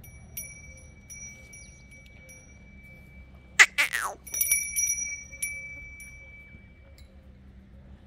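A small metal bell is struck twice, each time ringing on for about three seconds. A brief loud, sharp sound with a falling pitch comes in between the two rings.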